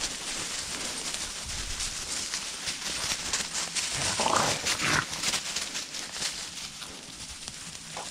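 Hurried footsteps crunching through dry pine straw and leaf litter, with a hound barking briefly about four seconds in.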